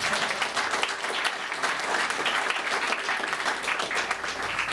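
Audience applauding: a dense round of many hands clapping at once.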